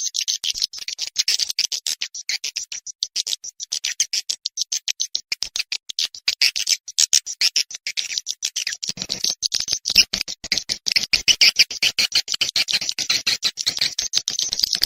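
Swiftlet lure call: a fast, continuous chittering of short, high chirps and clicks, played to attract swiftlets to a nesting house.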